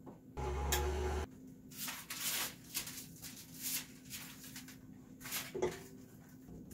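A stand mixer hums for about a second, then parchment paper rustles and crinkles in irregular bursts as marzipan is handled and rolled on it.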